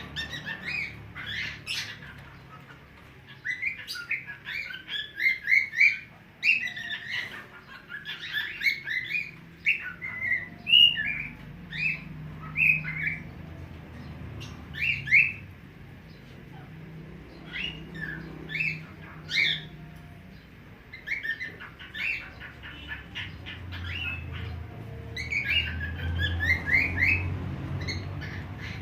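A songbird singing in quick phrases of short rising whistled chirps, with short pauses between phrases.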